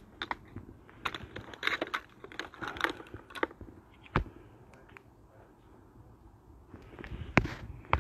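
A run of irregular small clicks, crackles and rustles, busiest in the first few seconds, with one sharp knock about four seconds in and a few more clicks near the end.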